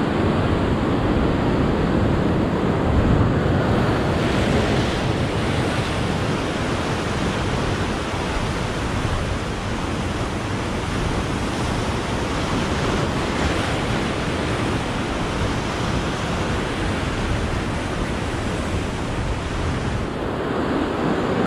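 Ocean surf breaking and washing over shoreline rocks, a steady rush of waves.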